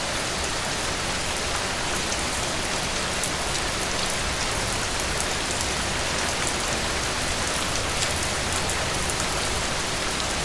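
Steady rain: an even hiss with many small, sharp ticks scattered through it.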